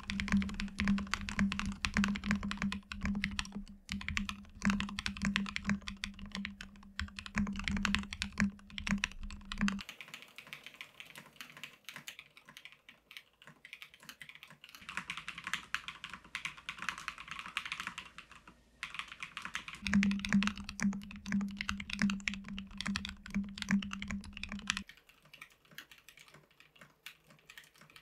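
Fast, continuous typing on an Alice-layout custom mechanical keyboard with lubed Strawberry Milk linear switches, an acrylic plate and case, and Osume Strawberry Milk keycaps: a dense run of rapid key clacks. The typing sound drops in level about ten seconds in, rises again a little before halfway through the second part, and softens again near the end.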